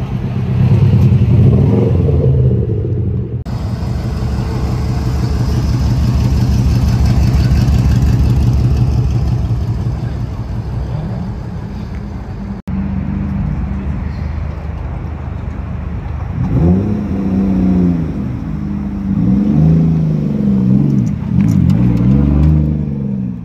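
Car engines running with a low, steady rumble, then several short revs near the end, each rising and falling in pitch.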